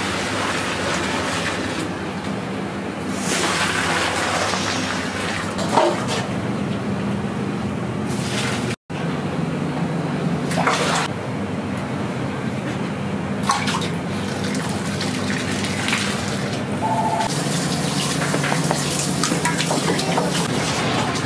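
Dashi stock being poured through a strainer and into containers, a steady run of pouring and splashing liquid over a low kitchen hum, with a brief break about nine seconds in.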